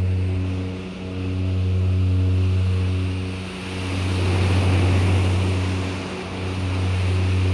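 Synthesized low drone from a self-hypnosis cassette: a steady hum with overtones that swells and dips about every two and a half seconds, with a soft hiss rising and falling around the middle.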